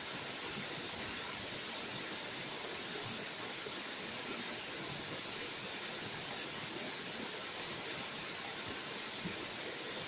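Small waterfall running down a rock face in thin streams: a steady, unbroken rush and hiss of falling water.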